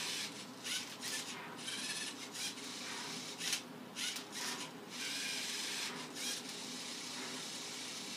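Lego Mindstorms NXT MindCuber robot working a Rubik's cube: motors running and the cube's plastic layers scraping as they are turned. It comes in a string of short rasping bursts with brief pauses, then a longer unbroken run from about five seconds in.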